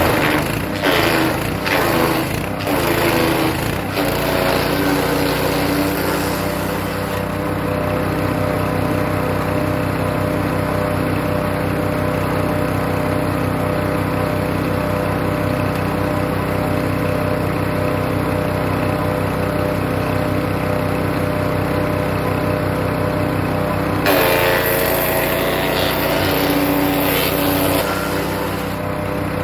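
Hecht 6208 petrol wood chipper chipping birch branches. There is irregular crunching for the first few seconds as wood goes through, then the engine runs steadily without a load. About 24 seconds in, another branch is chipped for several seconds and the engine's pitch dips under the load.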